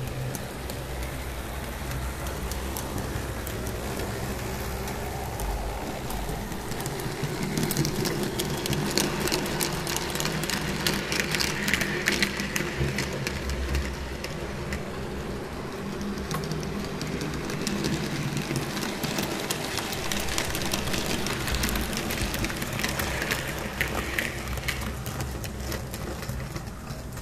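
TT-scale model train running on the layout: a steady low hum with fast, dense clicking of small wheels over the rails, heavier around the middle and again near the end.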